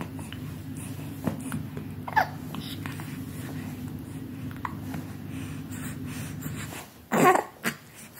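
Hiccups and short vocal noises, the loudest a sharp pitched burst about seven seconds in, over a steady low hum that stops just before it.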